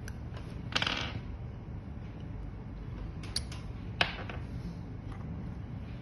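Hard plastic parts of a waterproof fibre optic connector clicking and scraping as they are pushed and twisted together by hand: a short scrape about a second in, two light clicks a little after three seconds, and a sharper click at about four seconds, over steady low background noise.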